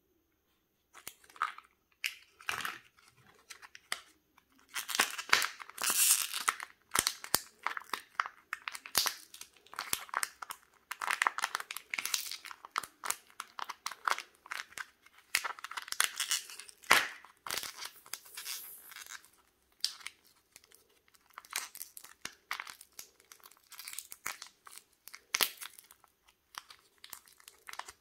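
A thin candy-egg wrapper crinkling and tearing as it is unwrapped by hand, in irregular bursts of crackles that start about a second in.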